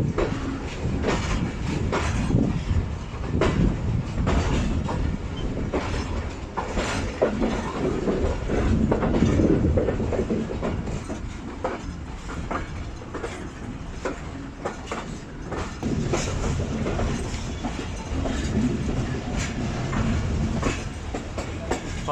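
Passenger train's wheels clattering over rail joints and points as it rolls out of a station yard, with sharp irregular clicks over a steady low rumble.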